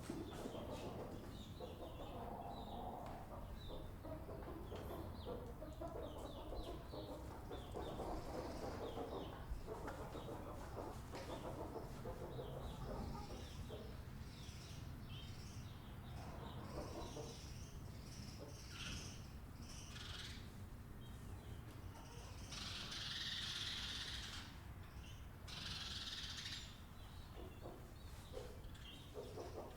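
Farmyard birds calling, poultry clucking mixed with short chirps, over a steady low rumble. Two louder high, noisy bursts of a second or two come about three quarters of the way through.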